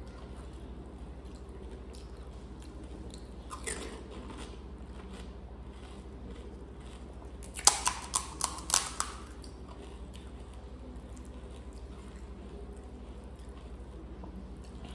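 Crisp pani puri shells crunching: one faint crack about four seconds in, then a quick run of about six sharp cracks around eight seconds in.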